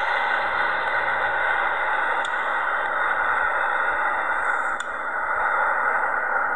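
Steady rushing noise of a four-engined Airbus A340 airliner's jet engines as it lands and rolls out on a wet runway.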